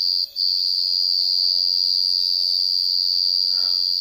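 A steady, high-pitched drone, one unbroken tone except for a brief dip about a quarter of a second in, with a much fainter lower hum under it.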